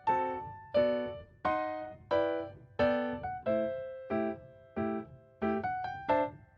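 Background music: a keyboard playing a simple tune of struck notes, a new note or chord about every two-thirds of a second, each ringing and fading; it stops at the very end.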